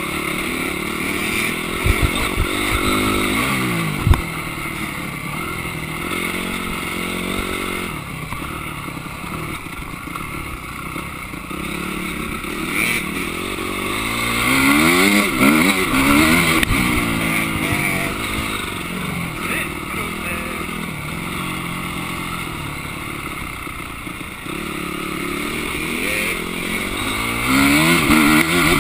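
Motocross dirt bike's engine heard from on the bike, revving up and falling back again and again as it is ridden round a dirt track. Two sharp knocks come about two and four seconds in.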